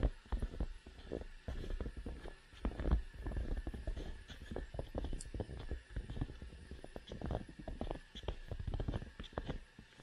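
Footsteps crunching in snow at a steady walking pace: a dense run of irregular short crunches and thumps.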